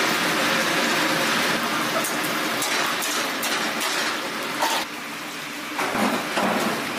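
Battered chicken frying in a deep vat of hot oil: a steady loud sizzle that drops away about five seconds in. A few short scrapes follow near the end, as a wooden paddle tosses the fried chicken in a wok.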